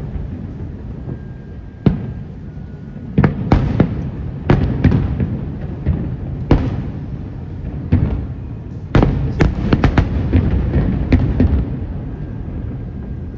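Aerial fireworks shells bursting: sharp bangs at irregular intervals over a steady low rumble, with a quick run of bursts about nine seconds in.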